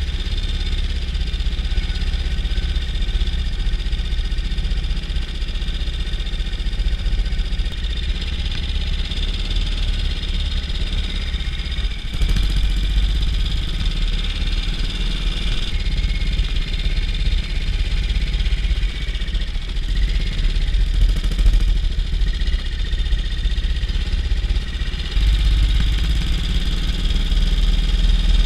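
BSA C15 Star 250 cc single-cylinder four-stroke motorcycle engine running steadily at low road speed, with wind rumbling on the microphone; the rumble grows stronger about halfway through and again near the end.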